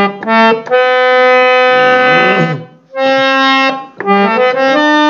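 Harmonium playing a few short notes, then one note held for about two seconds, then a run of quick notes near the end, as the notes (swaras) of the bhajan's tune are shown one by one.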